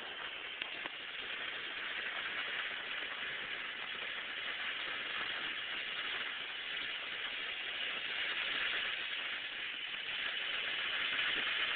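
Ground fountain firework burning, a steady hiss of spraying sparks that grows a little louder toward the end.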